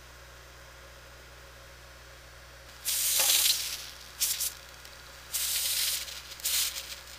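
Aerosol spray can sprayed in four short hissing bursts starting about three seconds in, the first the longest.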